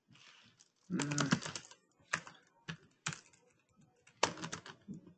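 Typing on a computer keyboard: several short runs of keystrokes with brief pauses between them.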